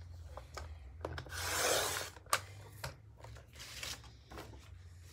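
A 12-inch paper trimmer's straight blade cutting a strip off a sheet of patterned paper: one scraping swish lasting about a second, followed by a couple of sharp clicks.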